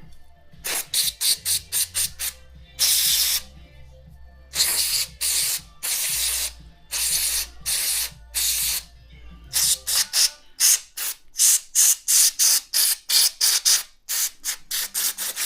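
Aerosol carb cleaner sprayed in dozens of quick hissing bursts, with several longer blasts of about a second, onto a small VVT-i oil filter mesh screen to flush it clean; the can is nearly empty.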